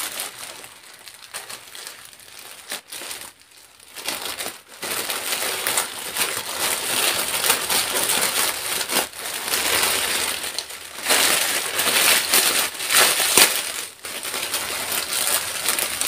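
Black plastic parcel bag crinkling and rustling as it is handled and opened. It is fainter for the first few seconds, then dense, continuous crinkling.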